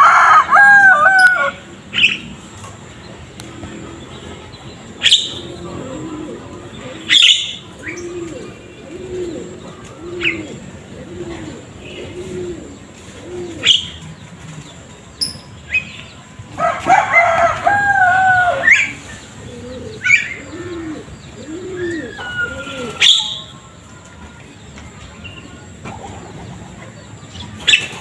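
Rural bird sounds: a rooster crows at the start and again about 17 seconds in. Between the crows come runs of low cooing notes, about one a second, and scattered short sharp chirps.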